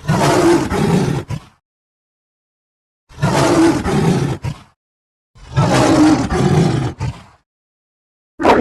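Wolf vocalisation, the same call of about a second and a half played three times with dead silence between, a fourth starting at the very end.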